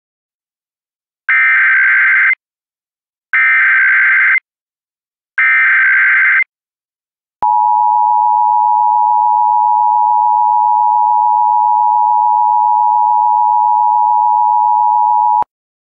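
Emergency Alert System broadcast tones. Three identical screeching data bursts of about a second each, spaced about a second apart, are the digital header. Then the steady two-tone attention signal holds for about eight seconds and cuts off suddenly, announcing an AMBER alert.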